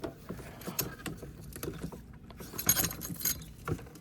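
Hand work on car parts: scattered clicks and knocks of plastic and metal, with a short run of light metallic clinking about three seconds in.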